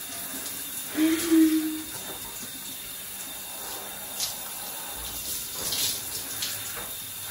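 Overhead rain shower spraying steadily onto a person's head and hair, with brief splashes as hands work through the wet hair. About a second in, a short steady hum-like tone rises above the water.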